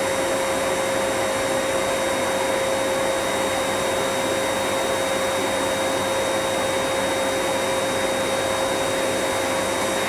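Electric air blower running at a steady speed: a constant whine over an even rush of air.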